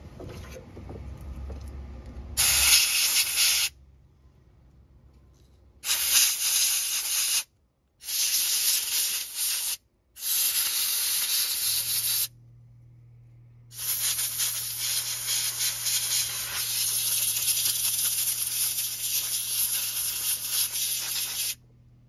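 Compressed-air blow gun blasting dirt and grime out of an electrical connector: five hissing blasts, the last and longest about eight seconds.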